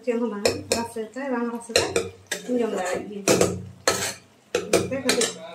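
Flat metal spatula scraping and clanking against a metal wok while stirring thick chicken curry, in sharp irregular strikes, with a voice talking in between.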